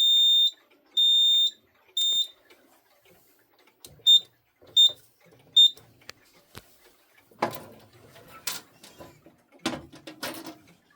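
Fire alarm sounder beeping a high-pitched electronic tone about once a second, which stops about two seconds in as the system is silenced. Three short chirps follow, then irregular clattering and knocks.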